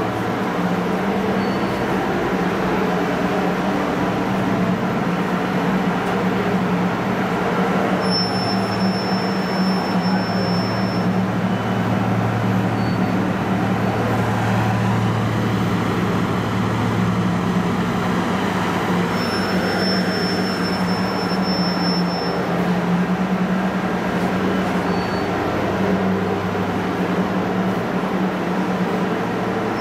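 Roll-to-roll heat transfer printing machine running: a steady mechanical hum and whir from its motors and fans. A thin high tone comes in twice for a few seconds.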